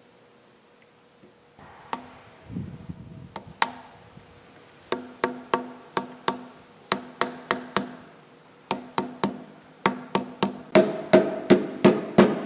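Ball-peen hammer tapping a new oil seal into the spindle housing of an Ammco 4000 brake lathe to seat it. There are two single taps first, then quick runs of light metallic taps, four to six at a time, each with a short ring. The hardest taps come near the end.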